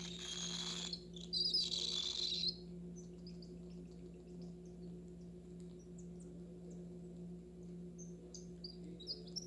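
A cockatiel chick's raspy, hissing begging calls in two short bursts in the first couple of seconds, then only faint little chirps and clicks, over a steady low electrical hum.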